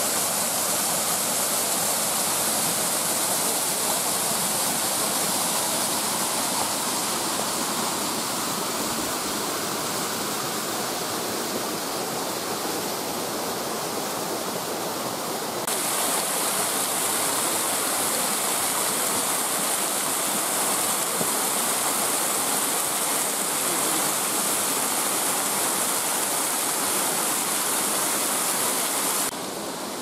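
Small waterfalls spilling over mossy rock: a steady rush of falling water. About halfway through it turns brighter and more hissing, heard close to a falling stream, and shortly before the end it drops to a quieter rush.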